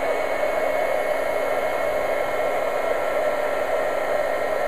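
Handheld embossing heat gun running steadily, blowing hot air with an even whir as it melts clear embossing powder on card stock.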